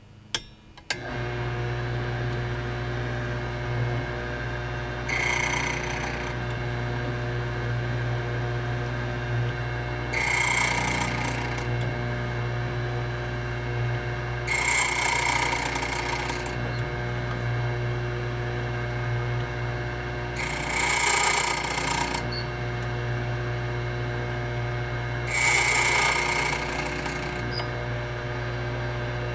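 HPC Blitz 1200 electric key machine switching on with a click and running with a steady motor hum. Five times its cutter bites into a brass key blank, each cut lasting a second or two with a harsh, bright grinding over the hum.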